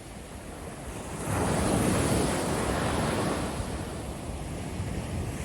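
Ocean waves breaking on a beach: a quiet lull, then a wave surges in about a second in and slowly washes back out, with the next one starting to build near the end.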